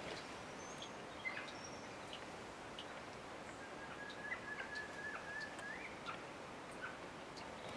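Forest ambience with high-pitched calls: scattered short chirps and ticks, two brief high whistles in the first two seconds, and one long thin whistle held steady for about two seconds near the middle that turns upward at its end.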